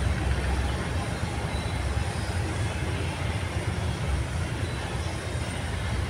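Steady low rumble of vehicle engines and traffic on a street.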